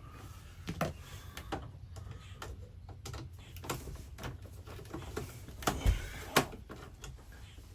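Scattered sharp clicks and knocks from hand tools and parts being handled while wires are fitted into an RV converter's terminals. The loudest two come close together about six seconds in, over a low steady hum.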